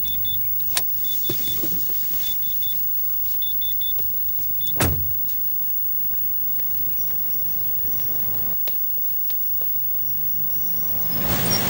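A car door slamming shut about five seconds in, with a few lighter clicks before it and short high beeps in twos and threes, over a low background hum.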